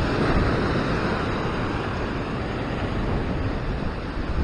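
Ocean surf breaking and washing over a rock ledge: a steady rush of whitewater, loudest in the first second, with wind buffeting the microphone.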